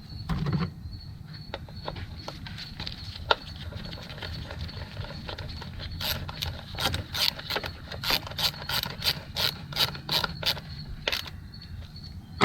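Hand ratchet clicking in a run of quick, even strokes, about three a second, as it drives in the hold-down bolt of an engine's ignition coil. Before that, a light thud and a single click as the coil is set in place.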